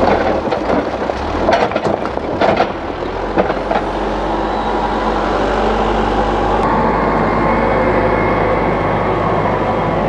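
Hidromek HMK 102B backhoe loader's diesel engine running steadily, with a string of sharp knocks and rattles in the first three seconds or so as the raised front bucket tips soil and stones over a foundation wall.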